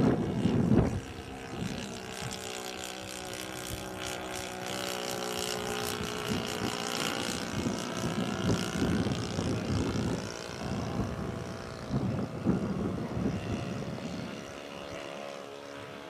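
Saito FA-62 four-stroke glow engine of a Seagull Decathlon 40 RC model airplane in flight, spinning a 13x6 propeller: a steady drone whose pitch drifts up and down as the plane moves across the sky. Wind buffets the microphone in the first second and again about ten to thirteen seconds in.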